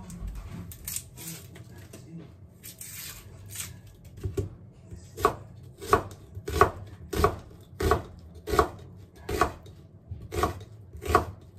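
Knife cutting an onion on a wooden cutting board: after a few seconds of faint rustling as the skin is peeled, steady chopping strokes begin about five seconds in, about three every two seconds.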